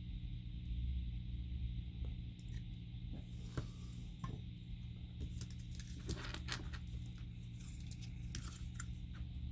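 Scattered small clicks and light scrapes of hand tools working on a circuit board, over a steady electrical hum and hiss.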